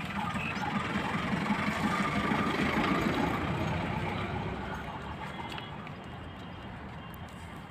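An engine running, growing louder to about three seconds in, then fading away.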